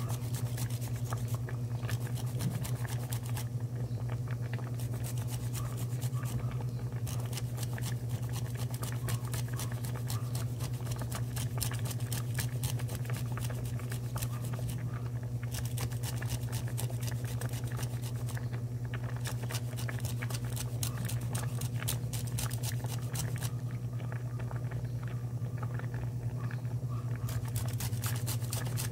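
Fresh ginger being grated on a hand grater: rapid scraping strokes in runs of a few seconds with short pauses between them, over a steady low hum.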